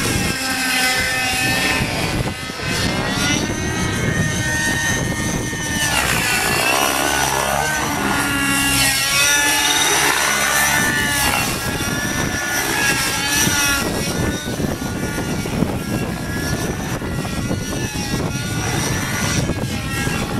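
Radio-controlled TZ50-V2 helicopter in flight: its engine and rotor whine rise and fall in pitch as it manoeuvres. About halfway through, the pitch sweeps up and then down as it passes close by.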